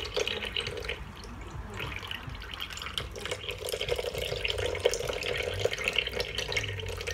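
Pineapple juice pouring from a can into a stainless steel bowl of sauce, a steady splashing trickle that drops away briefly about a second in and then resumes. A metal spoon stirs in the bowl through it, with small clinks.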